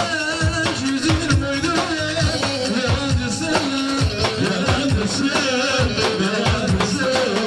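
Turkish folk dance music for a halay line dance: a steady drumbeat under a wavering, ornamented melody line.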